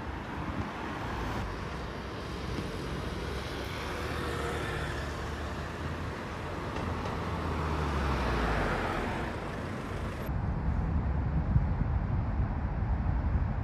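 Street traffic ambience: cars passing, with one vehicle growing louder and passing about two-thirds of the way through. About ten seconds in, the sound cuts abruptly to a duller background with an uneven low rumble.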